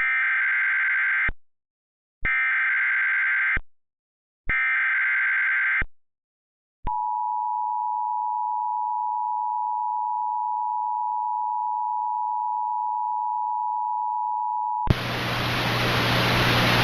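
Emergency Alert System SAME header: three identical bursts of warbling data tones. These are followed by the EAS two-tone attention signal, a steady dual tone (853 and 960 Hz) held for about eight seconds. Near the end the tone cuts off and a loud hiss with a low hum begins.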